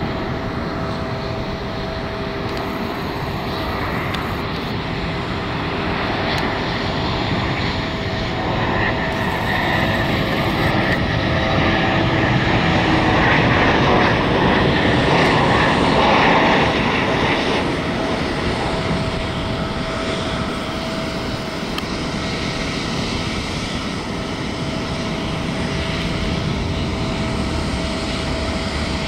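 Boeing 737 MAX's CFM LEAP-1B turbofan engines running as the airliner flies past low on approach, with a steady whine over the engine noise. It grows louder to a peak about halfway through, then fades as the jet moves away down the runway.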